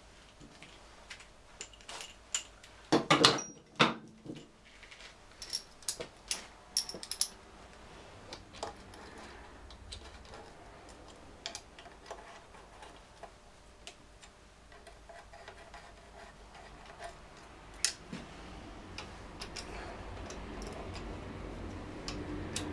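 Light metallic clicks and clinks of bolts being handled and fitted into a motorcycle engine crankcase, with a louder run of knocks about three seconds in and scattered ticks after.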